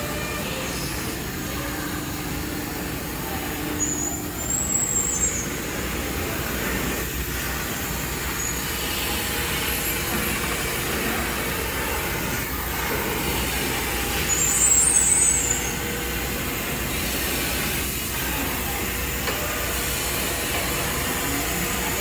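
CNC router's spindle and bit milling a foam block, a steady mechanical running noise. Two short high squeaks cut through, one about five seconds in and a louder one around fifteen seconds in.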